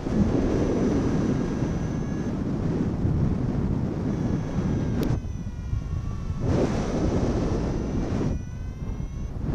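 Strong wind rumbling over the microphone, with a paragliding variometer's electronic tone sounding on and off above it, its pitch drifting slightly up and down.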